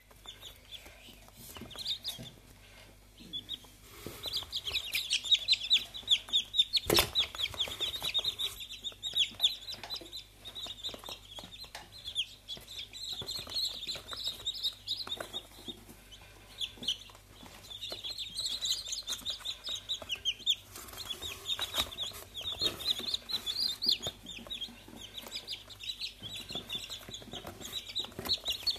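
Brahma chicks peeping, many high-pitched peeps overlapping in quick succession. Scattered knocks sound among them, one sharp one about seven seconds in.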